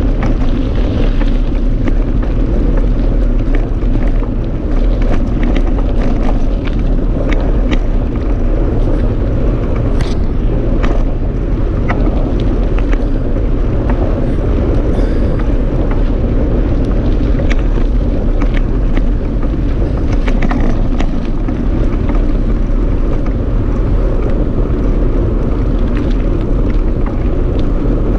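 Wind rushing over the camera microphone of a riding mountain bike, with scattered short rattles and clicks as the bike rolls over the rough, cracked lane.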